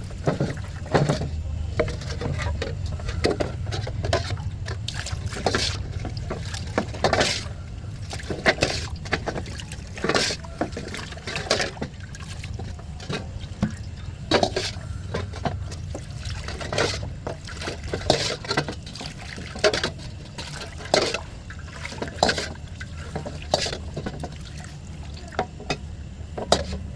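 Irregular sharp clicks and knocks, a few each second, over a steady low hum.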